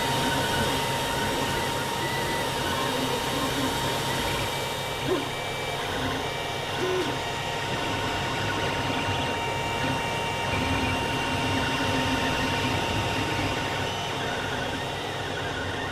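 Creality CR-10 3D printer running mid-print: a steady whir from its cooling fans, with the stepper motors giving short whining tones that change pitch as the print head moves. There is a brief knock about five seconds in.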